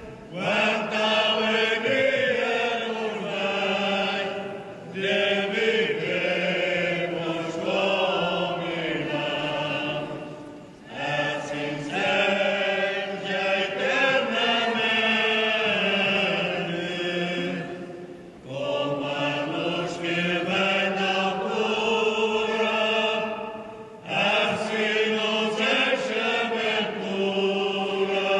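Slow church hymn sung in long phrases, with short breaks between them.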